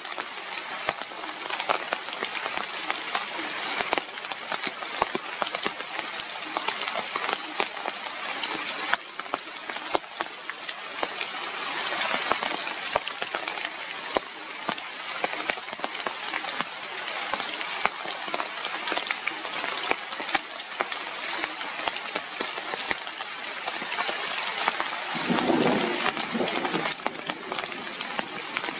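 Steady rain, a dense patter of drops hitting surfaces, with a brief lower rumble about 25 seconds in.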